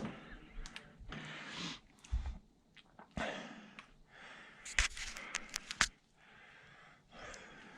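Handling noise from a headcam being taken off and checked: rustling swells and a quick cluster of sharp clicks about five seconds in.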